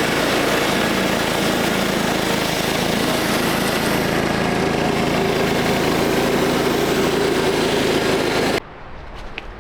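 Portable sawmill's gas engine running steadily under load, with the blade cutting through a log; the sound cuts off suddenly near the end.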